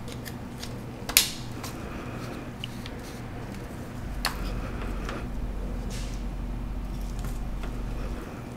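Handling clicks of a Canon nFD lens and its metal mount parts being picked up and fitted together: a sharp click about a second in, another about four seconds in, and lighter taps between.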